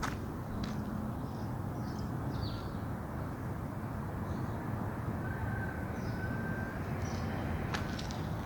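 Outdoor background of a steady low rumble with faint high chirps, and a few footsteps on the ground near the end.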